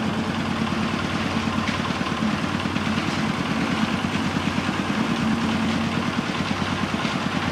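An engine idling steadily close by, with a fast even pulse.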